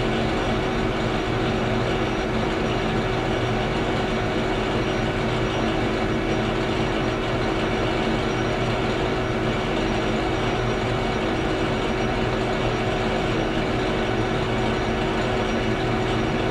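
Citizen M16 CNC Swiss-type lathe running, a steady machine hum with a constant low tone.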